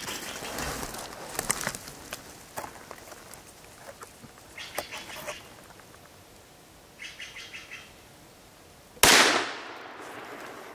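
A few short chirping calls, then one sharp rifle shot from a .17-caliber squirrel rifle about nine seconds in, its report dying away over about a second.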